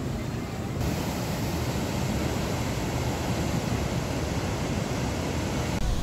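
Floodwater rushing through open dam spillway gates: a steady, heavy rush of water noise, with some wind buffeting the microphone. The sound shifts abruptly about a second in and again near the end.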